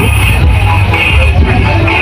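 Loud music played through a small mobile sound system with two subwoofers, dominated by heavy bass.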